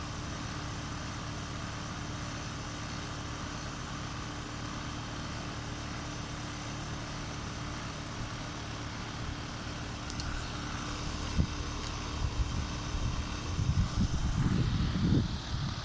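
Carrier outdoor air-conditioner unit running in heat mode (heat pump), a steady hum from the compressor and fan with one constant tone. From about ten seconds in, irregular low rumbles and knocks grow louder over the hum toward the end.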